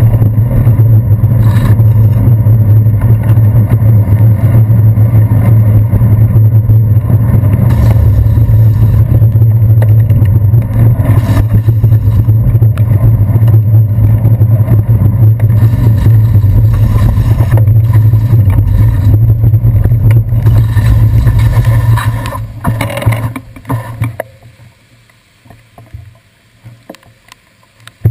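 Loud steady low rumble of a bicycle riding on wet city streets, picked up by a handlebar-mounted GoPro Hero 2: road vibration and wind on the camera. It dies away over a couple of seconds near the end as the bike comes to a stop, leaving quiet with a few faint ticks.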